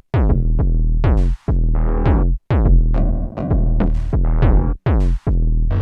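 Electronic synthesizer patch from the Endorphin.es Queen of Pentacles Eurorack module, played as a choppy run of drum-machine-like hits over a deep bass tone. Each hit starts with a quick downward pitch sweep, and the notes stop abruptly between hits.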